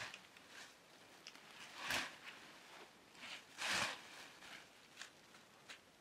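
Cut leafy tree branches rustling and crackling as they are handled and pressed together into a bundle, in scattered short rustles, the loudest about two seconds in and a longer one near four seconds.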